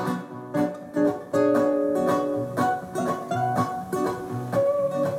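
Two acoustic guitars playing without voice: picked melody notes over chords, some notes left ringing.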